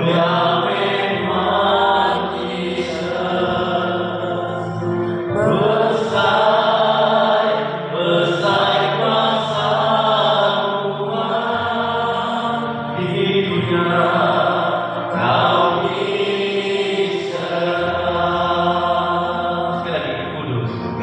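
Small mixed vocal group of men and women singing a slow worship hymn together into microphones, in long held phrases.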